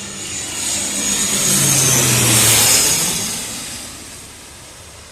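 A CASA C-295 turboprop transport passing close by. The propeller drone and a high turbine whine both drop in pitch as it goes past. It is loudest about two and a half seconds in, then fades away.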